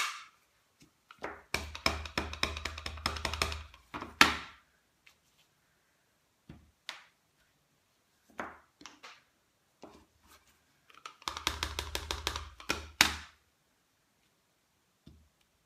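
A wooden-block rubber stamp is tapped quickly and repeatedly on an ink pad to ink it, in two runs of rapid taps. Between and after the runs come a few single thunks as the stamp is pressed onto card stock on the table.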